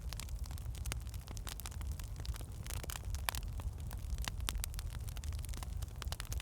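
Wood fire burning in a fireplace: logs crackling with irregular sharp pops over a steady low rumble of the flames.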